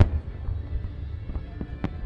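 Aerial fireworks bursting over music: one deep boom right at the start, then a few fainter pops from about a second and a half in.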